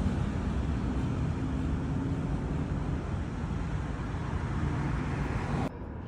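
Steady rumbling vehicle noise with a faint low hum, dropping off suddenly near the end.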